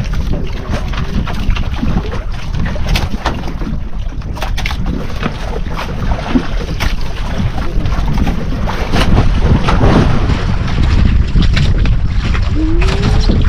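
Motorized outrigger fishing boat (bangka) under way at sea: a steady low rumble with wind buffeting the microphone, and scattered knocks and clatter as the longline is paid out over the side.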